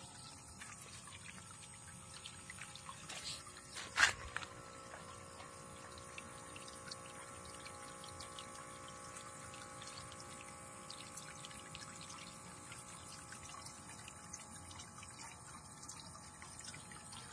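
Faint steady whine of a toy foam tugboat's small electric motor driving its propeller, with light water trickling. Two short knocks about three and four seconds in, the second louder.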